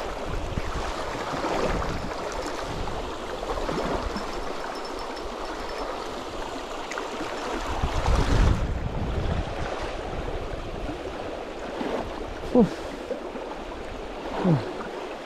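Shallow river current running steadily over a stony bed around the wading angler, with a louder low swell about eight seconds in.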